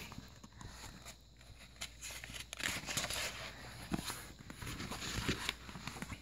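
Page of a picture book being turned by hand: paper rustling and soft handling noises, loudest about halfway through.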